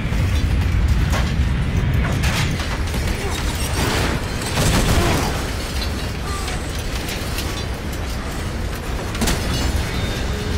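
Action-film sound mix during a violent struggle: a loud, steady low rumble with a whooshing swell about four to five seconds in and a few sharp hits scattered through.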